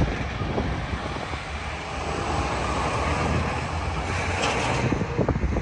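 A passing vehicle: a steady rushing noise with a low hum that swells through the middle and drops away about five seconds in, with wind buffeting the microphone at the start.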